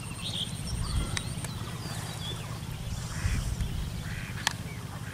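Ducks quacking, two short calls about three and four seconds in, with small birds chirping and a few sharp clicks.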